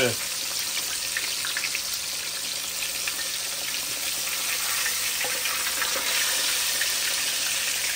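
Breaded snapper fillets shallow-frying in peanut oil in a cast iron skillet on medium-high heat: a steady sizzle, with a few faint clicks of a fork and spoon working the fish in the pan.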